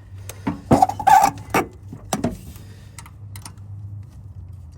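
Scattered metal clicks and knocks of hand tools and sockets working on the fuel pump bolts, the loudest about a second in, over a low steady hum.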